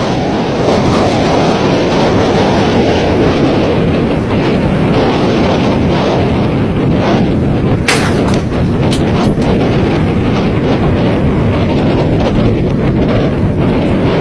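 Loud, steady rush of wind buffeting the microphone and water surging past the hull of a boat running at speed through choppy sea, with a sharp click about eight seconds in.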